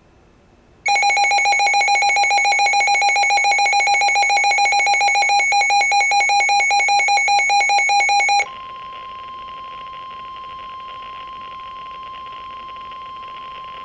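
A Midland WR-100 weather radio's built-in alert alarm sounds about a second in: a loud, rapidly pulsing multi-tone beeping that signals a warning has been received. It stops abruptly about two-thirds of the way through and gives way to the NOAA Weather Radio broadcast's steady warning alarm tone, near 1 kHz, heard more quietly through the radio's speaker with reception hiss.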